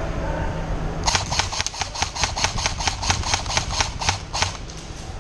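Airsoft gun firing a rapid string of about twenty shots, roughly six a second, starting about a second in and stopping shortly before the end.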